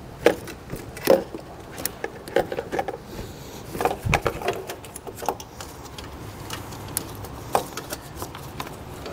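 Irregular plastic clicks and taps from gloved hands working at a tight plastic wiring clip on a car headlight housing, trying to pop it free.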